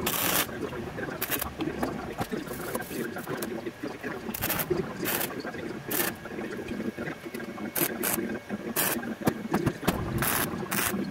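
Wire-feed welder arc crackling in about ten short bursts, tack-welding steel, with clatter of the gun and clamps between bursts.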